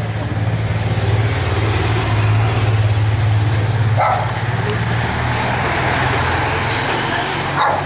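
A pack of road racing bicycles sweeping past close by, a dense rushing of tyres and air, over a steady low engine hum. A short shout or bark about four seconds in and another near the end.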